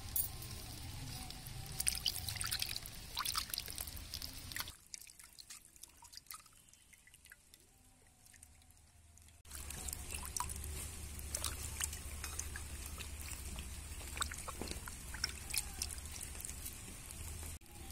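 Water splashing, trickling and dripping in a wooden bowl as hands wash a whole raw chicken. There is a much quieter stretch in the middle, from about 5 to 9.5 seconds in.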